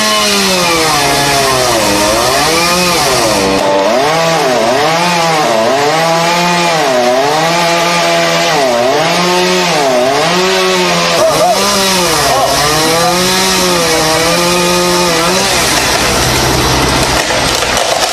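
Chainsaw cutting tree limbs. Its engine note rises and falls in a steady cycle about once a second as it bites into the wood and eases off, then dies away about fifteen seconds in.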